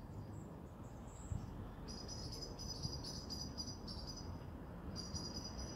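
Crickets chirping in rapid pulsing trains, joining in about two seconds in and pausing briefly near the end, over a steady low rumble.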